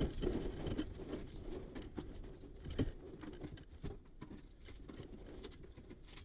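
Pliers gripping and bending over the thin steel rain channel of a Triumph GT6 windscreen frame: a scatter of light metallic clicks and scrapes, with one louder knock a little under three seconds in.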